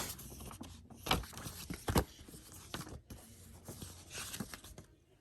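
Paper rustling from an instruction booklet being handled and leafed through, with a few light clicks and knocks.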